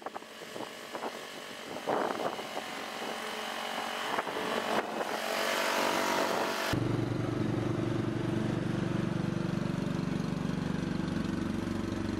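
Husqvarna ride-on lawn mower's engine running as it mows grass, faint at first and growing louder as the mower passes close. About two-thirds of the way in the sound jumps to a louder, steady engine note heard from close behind the mower.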